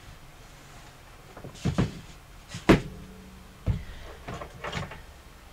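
A few short knocks and clunks on a tabletop, the loudest a little under three seconds in: a small craft iron being set down and the quilt block handled and smoothed flat on the work table.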